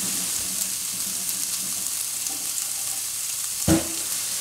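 Food sizzling in a frying pan on high heat, a steady hiss, with one sharp knock about three and a half seconds in.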